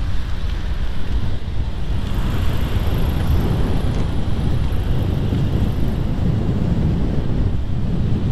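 Wind buffeting the microphone of a camera on a moving bicycle: a steady low rumble.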